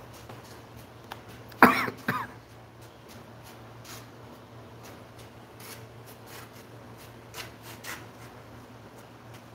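A man coughs twice in quick succession about one and a half seconds in, over a low steady hum, with a few faint clicks near the end.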